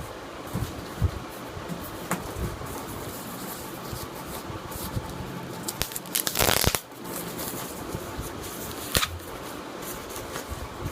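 Handling noise: light rustling and small clicks over a steady background hiss, with one loud burst of rustling about six seconds in.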